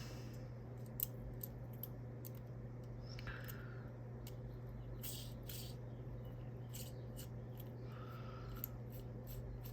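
Faint, irregular small clicks and scrapes of a hand screwdriver and bit working a small screw on a fidget toy, over a steady low hum.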